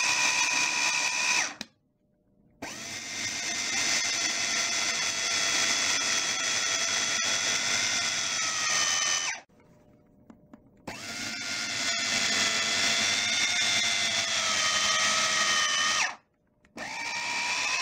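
Moulinex electric mini chopper motor whining as it grinds roasted peanuts into a smooth paste. It runs in four bursts with three short stops between them, and its pitch sags slightly during the longer runs.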